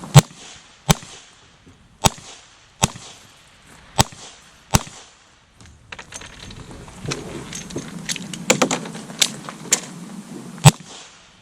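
Smith & Wesson Model 66 revolver firing .38 Special in an IDPA stage: six loud shots in three pairs, the two shots of each pair under a second apart. Then comes a pause with quieter clicks and knocks, followed by more shots near the end.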